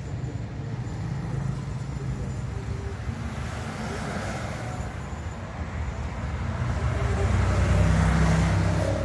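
Road traffic running steadily, with a vehicle engine growing louder as it passes close, loudest about eight seconds in.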